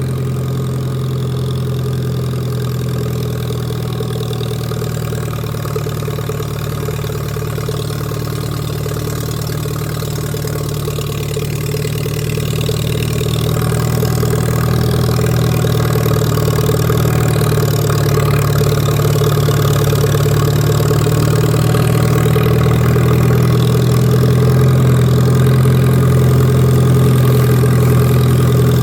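Lawn mower engine running steadily, growing somewhat louder about halfway through.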